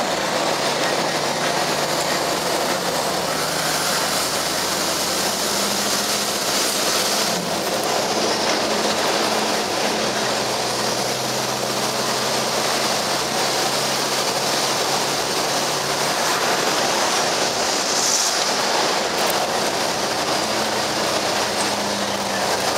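A MAN TGA truck's diesel engine and tyre and road noise, heard from inside the cab while driving. The engine note steps up and down in pitch a few times.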